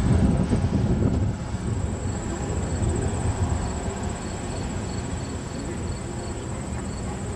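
Outdoor street-side ambience: a low rumble of traffic, heavier for the first second or so, with insects chirping in the garden plantings as short high chirps repeating a few times a second from about two seconds in.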